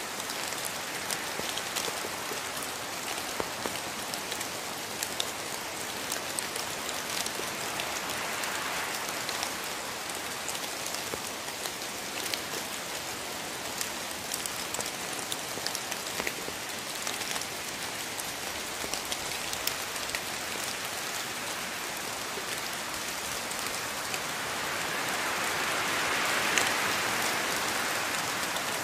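Steady rainfall in a rainforest, with many single drops heard as small sharp ticks over the even hiss; it grows louder near the end.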